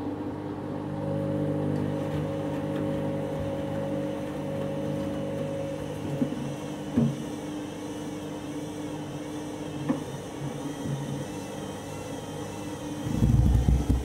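Candy front-loading washing machine running its spin with a load of wet bathrobes: a steady motor hum as the drum turns, a few light knocks, and a louder low rumble near the end.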